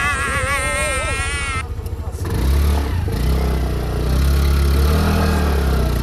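A wavering, high-pitched edited-in sound effect for the first second and a half, then a small single-cylinder Honda Activa 125 scooter engine revving hard from about two seconds in as it is ridden up a dirt mound, the revs climbing near the end.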